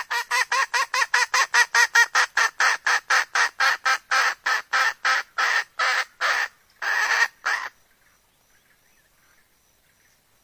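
Red junglefowl hen cackling: a fast run of short, sharp 'kek' notes, about five a second, that spaces out toward the end and stops about three-quarters of the way through. This is the hen's call when she is in breeding condition and ready to mate, the call used to lure males.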